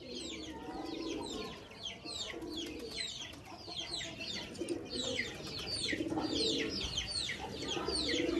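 Pigeons cooing in a loft, under a dense, continuous chorus of quick, high, falling chirps from many birds.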